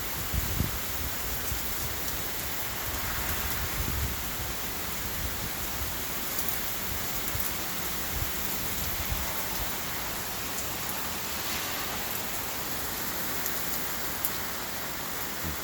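Heavy rain falling steadily, an even, dense hiss. A few low thumps come near the start.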